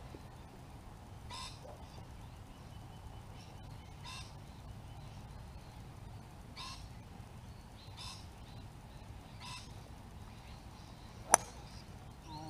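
Golf club striking a ball off the tee: one sharp crack about eleven seconds in, the loudest sound. Before it, a bird gives a short call every second or two.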